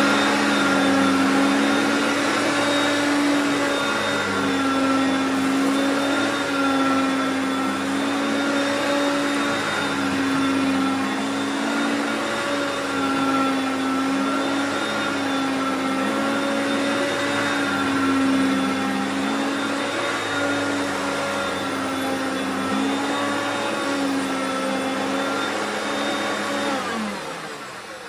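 Hoover Concept One self-propelled upright vacuum cleaner running steadily as it sucks up clumps of dryer lint from a rug, its motor pitch wavering slightly. Near the end the motor winds down.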